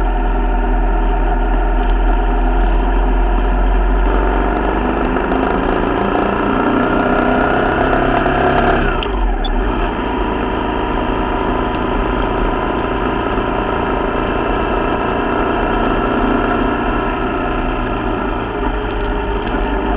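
Corven Triax 150 motorcycle's single-cylinder engine running under way. Its pitch climbs steadily for several seconds as it accelerates, drops sharply about nine seconds in, then holds steady. Wind rumbles on the microphone underneath.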